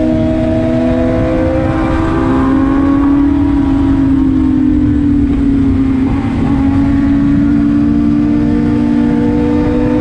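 Suzuki GSX-R750's inline-four engine running at speed, its pitch drifting up and down through the bends with a brief dip about six seconds in, over heavy wind rumble on the microphone.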